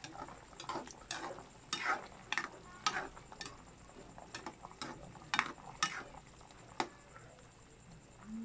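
A metal spoon stirring chicken pieces in broth in a pan, scraping and clinking against the pan about a dozen times at an uneven pace and stopping a little before the end.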